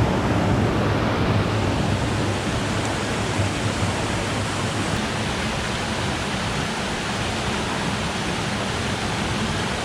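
Water pouring over a small waterfall on a tiny creek: a steady, even rush of falling water.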